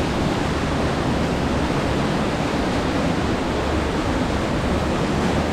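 Creek waterfall pouring, a steady, unbroken rush of water.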